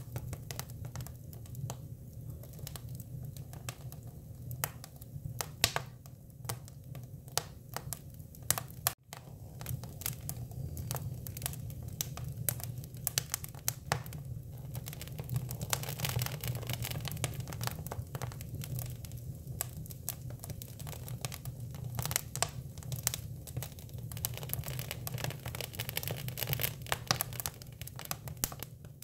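Hinoki cypress wood burning, crackling with frequent irregular sharp pops and snaps over a steady low rumble.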